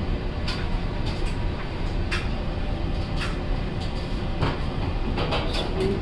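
Steady low rumble of background machinery, with scattered light clicks and knocks from hands working on wiring and parts inside a clothes dryer's opened lower panel.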